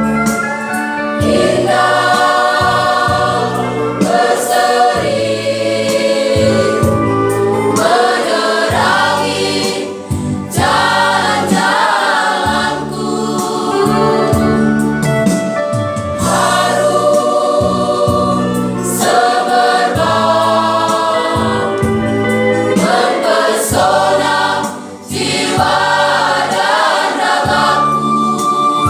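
High school choir singing a Christian song in Indonesian in several voice parts, with short breaks between phrases about 10 and 25 seconds in.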